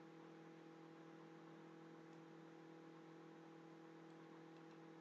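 Near silence: faint steady electrical hum and hiss, with a couple of faint ticks.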